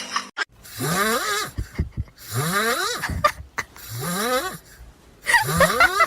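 An animal snoring: four drawn-out breaths, each rising in pitch, about one and a half seconds apart.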